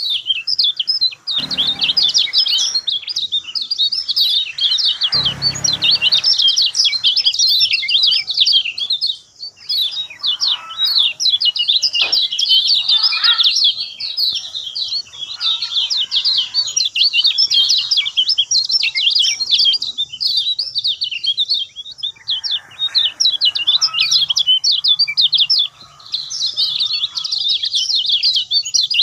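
Kecial kuning birds chattering in a rapid, almost unbroken stream of high chirps and trills, a flock-style song recording meant to lure a silent bird into singing. Two dull low thumps come under the chirping in the first few seconds.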